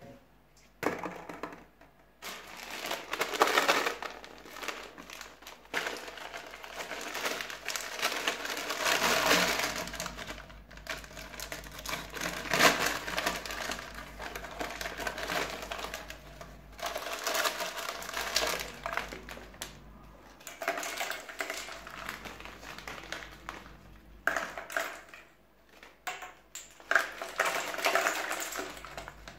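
Foil snack bag crinkling as it is handled and shaken, in bouts with short pauses, with small ring-shaped corn snacks falling onto plastic balls.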